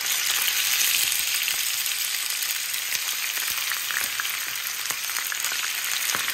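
Cubed raw beef sizzling in hot vegetable oil in a frying pan as more pieces are dropped in, a steady hiss with scattered small pops and crackles.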